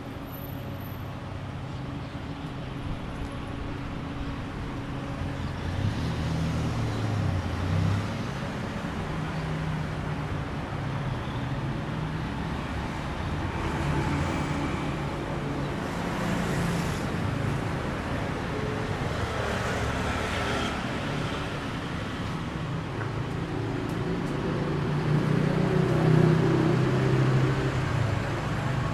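Busy road traffic: cars and pickup trucks driving past close by, a continuous engine hum and tyre noise that swells several times as vehicles pass, loudest near the end.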